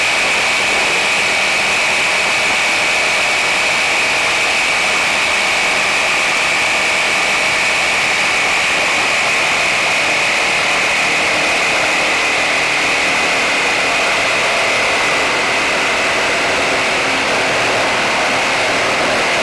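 Circular saw cutting steadily through a long run of gum board: a continuous high whine that sags slightly in pitch as the blade loads up in the hard wood.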